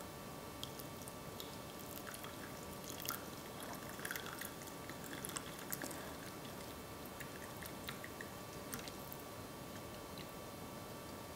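Hot water poured slowly in a thin stream from a kettle into a Vietnamese phin drip filter onto ground coffee: a faint, quiet trickle with scattered small drips and clicks in the middle seconds.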